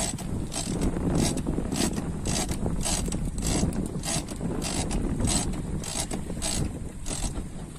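Big-game trolling reel cranked under load as line is won back on a hooked yellowfin tuna: a short rasping click with each turn of the handle, about every half second, over a steady low rumble.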